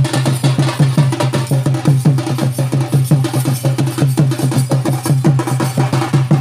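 Traditional drums beating a fast, steady rhythm, about five strikes a second.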